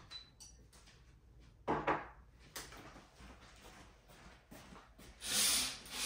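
Sheer curtains drawn open along their rail: a loud swish of fabric and sliding runners about five seconds in, coming in two pulls. Earlier, about two seconds in, a short double knock, like a door or a handled object being set down.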